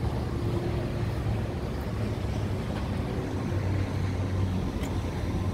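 A steady low engine rumble with outdoor background noise.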